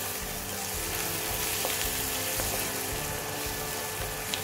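Chopped chillies and onions sizzling steadily in hot oil in a wok, stirred with a wooden spatula that taps and scrapes the pan a few times.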